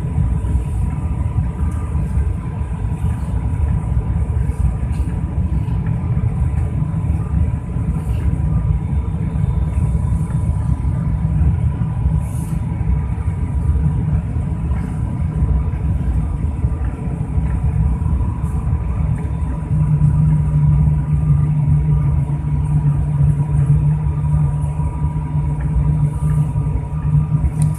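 Airliner cabin noise on the approach to landing: a steady low roar of engines and airflow with a thin steady whine above it. About twenty seconds in, a deeper hum comes in and makes it louder.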